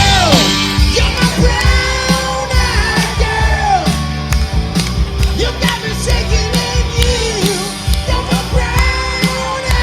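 Live classic rock band playing, with a singer belting over a steady drum beat and bass.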